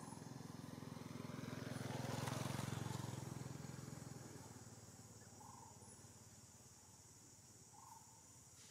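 A motor vehicle's engine passes by, its low hum growing louder over the first two to three seconds and then fading away. A steady high insect drone runs underneath, and a few short chirps come in the second half.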